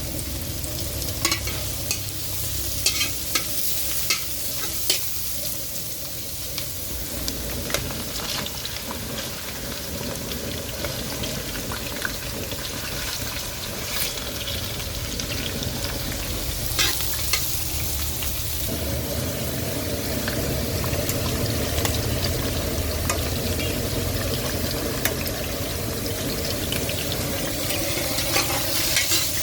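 Food sizzling as it fries in a pan while being stirred, with sharp clicks of a utensil striking the pan every few seconds.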